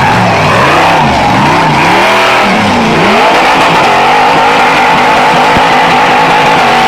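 Rock bouncer race car's engine revving in a run of rising and falling blips, then held steadily at high revs from about three seconds in.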